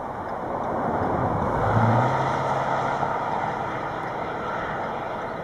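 A vehicle passing on the road: tyre and engine noise swells to its loudest about two seconds in, with a low hum at the peak, then fades away.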